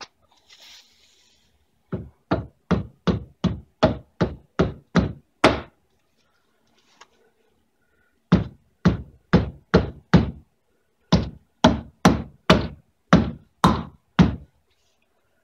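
Hammer striking a front wheel hub assembly to seat it in the steering knuckle: three runs of sharp blows, about three a second, with two short pauses between them.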